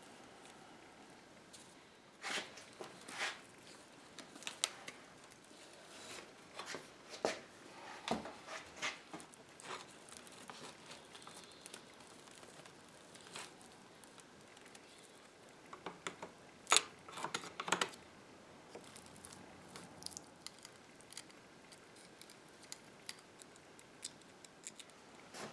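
Dry woven rush seat cord rustling, crackling and scraping as it is pried back from a chair's corner joint with fingers and a thin steel blade. The sounds come in scattered short bursts, with a cluster of sharper scrapes about two-thirds of the way through.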